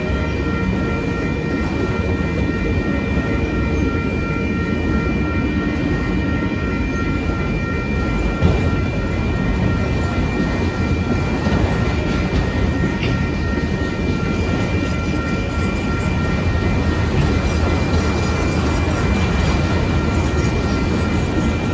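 Freight train of autorack cars rolling past at a grade crossing: a steady rumble and clatter of steel wheels on the rails, with one louder knock about eight seconds in. The crossing's warning bell rings steadily over it.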